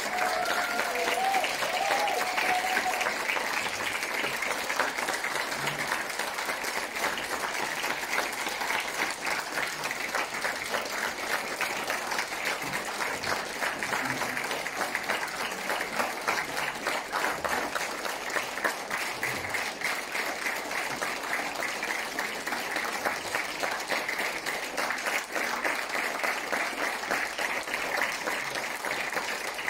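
Audience applauding steadily: a dense, even patter of many hands clapping that keeps going without a break.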